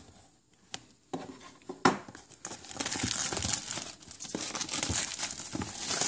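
Clear plastic shrink wrap being torn and peeled off a cardboard product box, crinkling. A few sharp ticks come in the first two seconds, then the crinkling runs on continuously.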